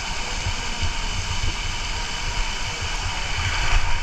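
Inflatable tube sliding fast down a water slide: a steady rush of water and air, with uneven low rumbling buffets underneath.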